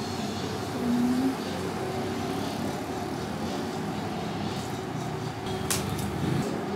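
Steady low hum of background machinery, with a short tone about a second in and a couple of light clicks near the end.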